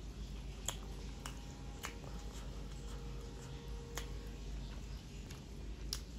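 Close-up eating sounds: about half a dozen sharp, wet clicks and smacks from the mouth and fingers as dripping cooked greens are lifted from broth and eaten by hand.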